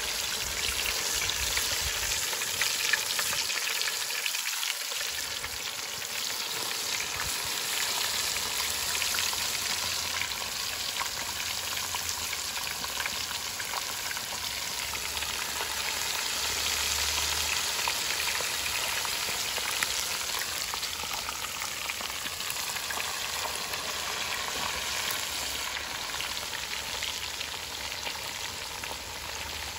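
Masala-coated vaala fish and curry leaves frying in hot oil in an aluminium pan: a steady sizzle with crackling, the oil hot enough to fry the fish vigorously.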